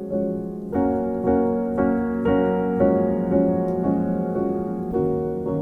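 Slow, gentle piano or electric-piano chords, restruck about twice a second and left to ring.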